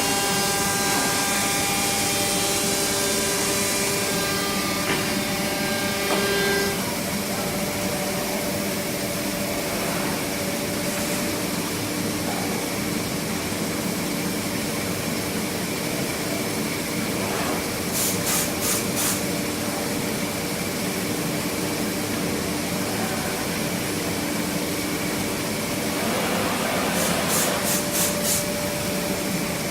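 Three-head, five-axis CNC wood machining centre running: a steady mechanical whine and hiss. Several steady tones sound together for the first few seconds and then stop. Short runs of rapid high ticks come twice, about two-thirds of the way in and near the end.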